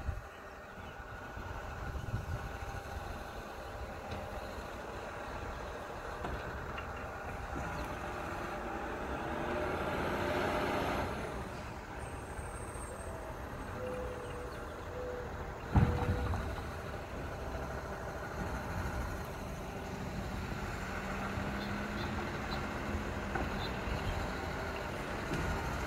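Labrie Expert 2000 garbage truck running at low speed as it creeps along, a steady low engine drone. A swell of hissing noise comes about ten seconds in, and a sharp loud thump about sixteen seconds in.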